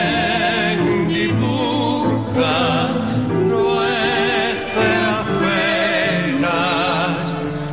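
A song: a sung voice holds long notes with a strong vibrato over instrumental accompaniment, between lines of the lyric.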